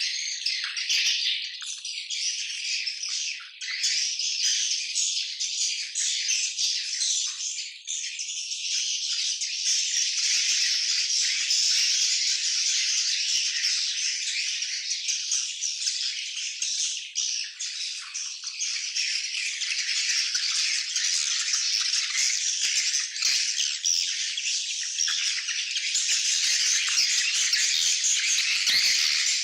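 A swiftlet colony twittering: many birds chirping and clicking at once in a dense, high-pitched, unbroken chatter, a little louder near the end.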